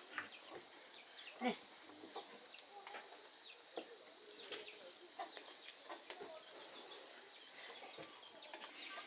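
Chickens clucking faintly, with short calls scattered through.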